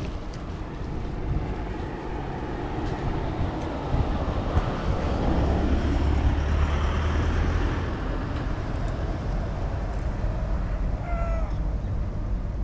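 A cat meows once, a short call about eleven seconds in, over a steady low rumble.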